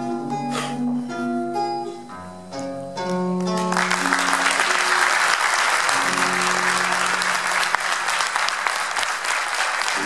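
Acoustic guitar picking single notes, then applause breaks out about four seconds in and carries on, with the guitar still playing softly beneath it.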